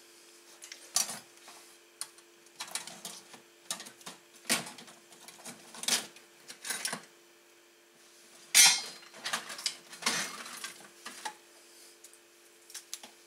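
Irregular metallic clanks, rattles and scrapes of rummaging among metal hardware off the bench to dig out an old PC power supply, the loudest clatter about two-thirds of the way through. A faint steady hum runs underneath.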